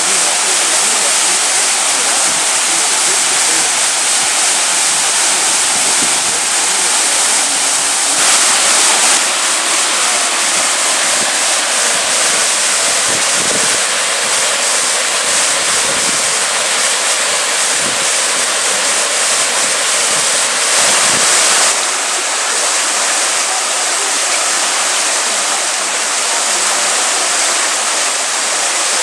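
Waterfall and rocky stream rushing into a pool: a loud, steady hiss of falling and running water that changes in tone about eight seconds in and again around twenty-two seconds in.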